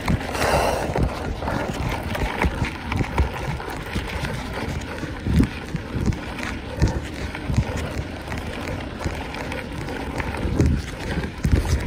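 Mountain bike ridden over rough ground: steady tyre noise with irregular knocks and rattles from the bike, and wind buffeting the microphone.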